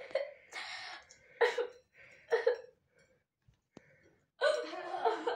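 A girl whimpering and coughing in short choked bursts with her mouth full of food, a few in quick succession, then a longer one near the end. A single sharp click falls in the pause between them.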